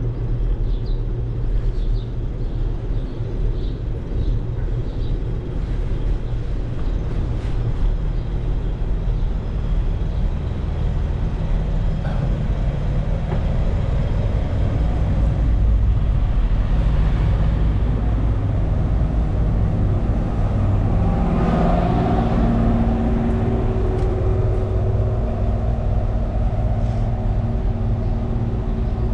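Steady low rumble of wind and road noise on a bicycle-mounted GoPro's microphone as the bike rides along. About twenty seconds in, a motor vehicle's engine hum joins it, with a few steady tones that hold for several seconds.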